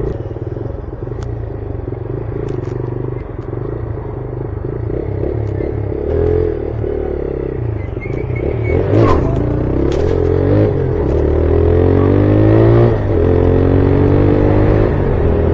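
Motorcycle engine running under way, then throttled hard from about six seconds in: its pitch rises and falls several times as it accelerates, and it grows louder in the second half.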